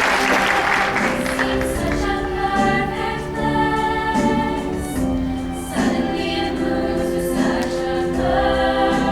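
Applause trailing off in the first second, then a choir singing held chords, several voices sustaining notes together and moving to new chords every second or two.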